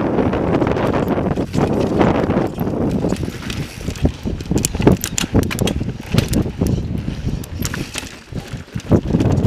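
Mountain bike ridden over sandstone slickrock, wind rushing over the camera microphone. From about three seconds in, a run of sharp clacks and rattles comes as the bike rolls over rough, ledgy rock.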